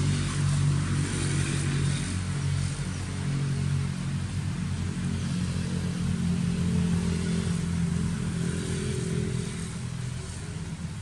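A motor engine running steadily, a low drone that eases off a little near the end.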